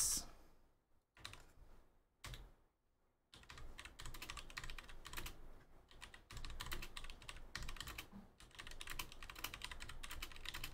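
Typing on a computer keyboard: a few scattered key clicks, then steady rapid keystrokes from about three seconds in.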